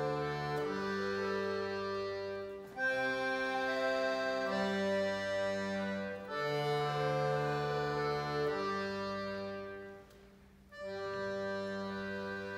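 Solo accordion playing slow, sustained chords over held bass notes, the harmony changing every second or two, with a short break about ten seconds in before the playing resumes.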